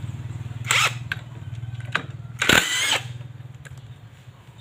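Impact wrench undoing the clutch centre nut in two bursts, a short one about a second in and a longer one near the middle, with a few clicks between. A steady low hum runs underneath.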